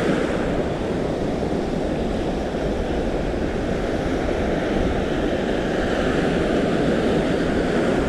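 Steady rush of surf and wind over a shallow reef, heaviest in the low end, with wind buffeting the microphone.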